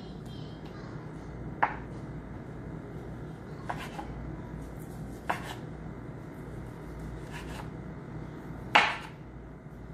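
Chef's knife slicing boiled pork belly thinly on a cutting board, the blade knocking sharply on the board a few times as each slice comes free, the loudest knock near the end.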